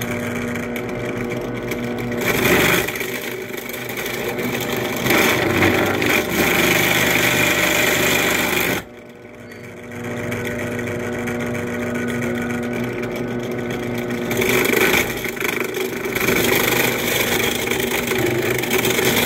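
Benchtop drill press running with a steady motor hum, its bit boring into a wooden seat in several louder, rougher bouts. The sound drops away abruptly about nine seconds in, then builds back up as the press runs on.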